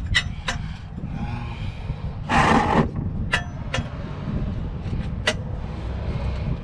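Scattered sharp clicks and a brief louder scrape about two and a half seconds in, from hand tools working on the car's transmission, over a steady low rumble.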